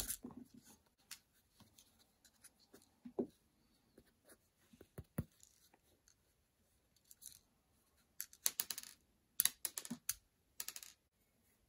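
Light clicks and taps of the black plastic speaker housing and parts of a Google Nest Mini being pulled apart and handled by hand, scattered through, with a quick run of clicks about eight to ten seconds in.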